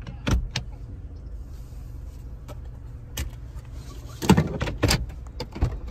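Car engine idling with a steady low hum, with several sharp clicks and knocks over it, the loudest cluster about four seconds in.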